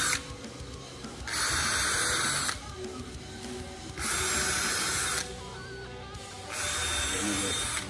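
Cordless drill-driver driving the screws that fix a large woofer into a speaker cabinet. A short run ends just at the start, then it runs three more times, each for a little over a second, with pauses between.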